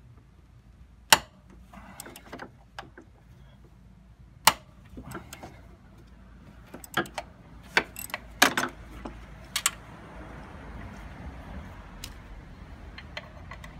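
Scattered sharp metallic clinks and taps of a ratchet wrench and socket against bolts and the engine bracket in a car's engine bay, a second or more apart. A steady low rumble comes in near the end.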